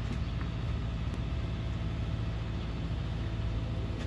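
Steady low rumble of idling vehicle engines, with no crossing-bell strikes.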